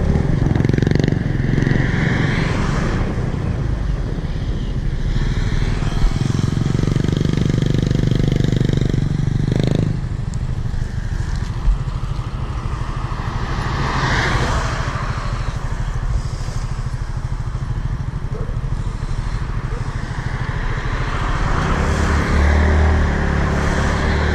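Motorbike engines running as the bikes ride along a road: a steady engine drone under road noise.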